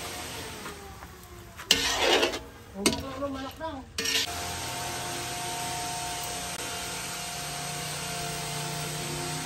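A metal spoon and lid scraping and clattering against a steel wok, with one loud scrape about two seconds in. From about four seconds on there is a steady hiss with a faint hum.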